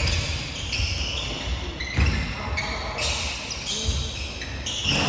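Basketball bouncing on a gym floor, a few heavy thumps at uneven intervals, with high squeaking tones over them.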